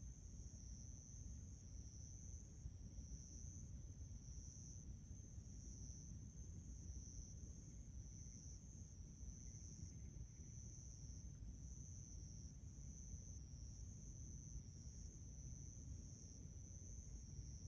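Insects, likely crickets, trilling: a steady high-pitched chirring with a faint regular pulse, over a low rumble.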